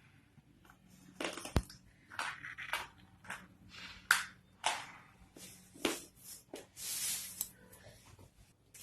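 Someone biting and chewing slate pencils: a series of irregular, sharp crunches and cracks, with a longer gritty grinding stretch about seven seconds in.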